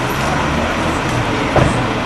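Double-decker bus engine running as the bus drives away along the street, with street traffic noise. A single brief thump about one and a half seconds in.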